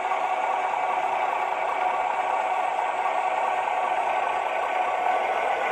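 Diesel railcar engine sound from a Zimo sound decoder, an adapted 'Schienen-LKW' rail-truck sound file, playing through the small loudspeaker of a Dapol O-gauge AEC railcar model. It runs steadily, with a light rattle and little bass.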